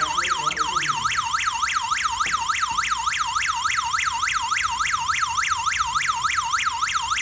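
Siren of a WG11 WiFi/GSM wireless burglar alarm system going off: a loud, fast electronic wail sweeping up and down in pitch about four times a second.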